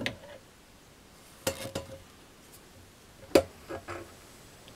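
Several sharp metal clinks and knocks as aluminium engine parts and tools are handled during disassembly. The loudest comes about three and a half seconds in, with two smaller ones just after it.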